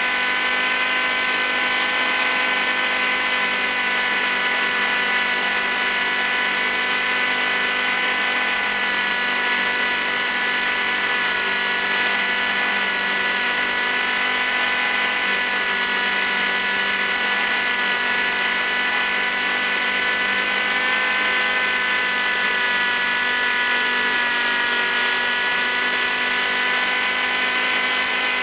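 Model helicopter's motor and rotors heard from a camera strapped to its underside: a steady, high whine whose pitch wavers slightly as it flies.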